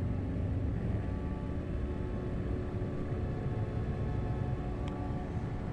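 Harley-Davidson V-twin motorcycle engine running steadily at low speed, with wind and road rumble, heard from the bike itself. A brief click about five seconds in.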